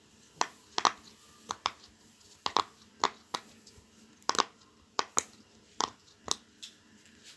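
Silicone pop-it fidget toy being pressed bubble by bubble, each bubble giving a short, sharp pop. The pops come about two a second at an uneven pace.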